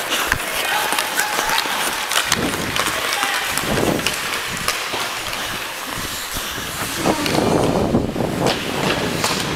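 Hockey skates scraping and gliding on rink ice, with sharp clicks of sticks and blades and wind rushing over a body-worn camera's microphone as the wearer skates.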